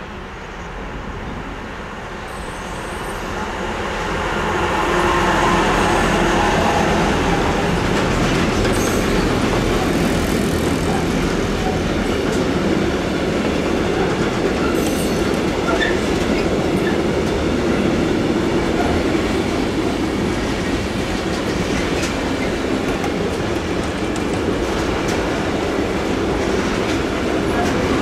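Long freight train passing, its wheels clattering over the rails. The noise builds over the first five seconds as the train arrives, then holds steady as the wagons roll by.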